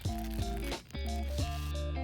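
Background music: guitar-led instrumental with bass and a steady beat.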